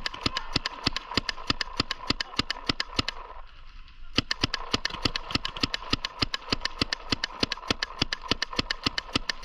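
Paintball markers firing in a fast, steady stream of sharp pops, about six or seven shots a second, with a pause of about a second roughly three seconds in.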